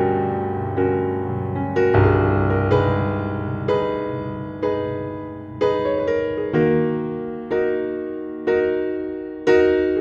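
Background music: slow, gentle piano, a note or chord struck about once a second and left to ring and fade.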